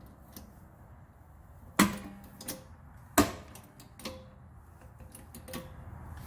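A few sharp metallic knocks and clanks, two loud ones about a second and a half apart, each with a short ring, and fainter clicks between them.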